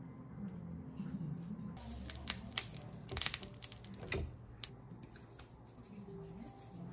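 Kitchen utensils clicking and scraping against a stainless steel pan of noodles, with a run of sharp clicks from about two seconds in and the loudest knocks about three and four seconds in, followed by light ticks of a seasoning shaker. A low wavering hum underlies the first two seconds.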